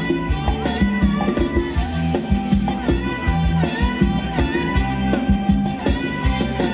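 Live band playing upbeat Thai ramwong dance music, with a steady drum beat, bass and a melodic lead line.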